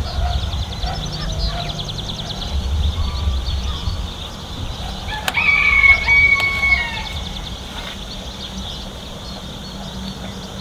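A rooster crows once, about five seconds in, for a second or two; it is the loudest sound here, over a steady background hiss.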